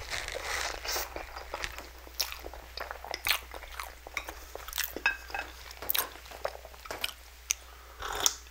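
Close-miked eating of spicy instant noodles: a slurp of noodles at the start, then wet chewing with many small sharp clicks and smacks. About eight seconds in, a sip of water from a glass.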